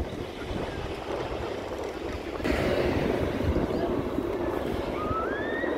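Military transport aircraft flying over in formation: a steady distant engine drone that grows louder about two and a half seconds in, with wind buffeting the microphone. A short rising whistle sounds near the end.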